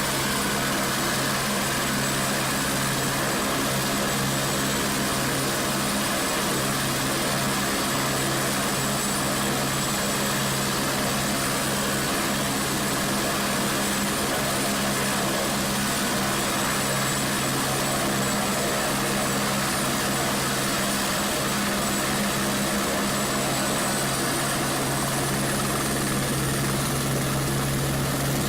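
Flight for Life medical helicopter running steadily, with the rotor and engine sound unbroken and a high whine that rises slightly in pitch near the end.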